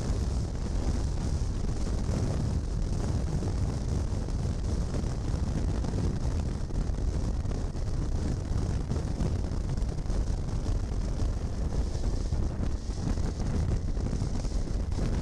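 Steady wind rumble on a motorcycle-mounted camera's microphone while riding at road speed, mixed with the motorcycle's engine and road noise.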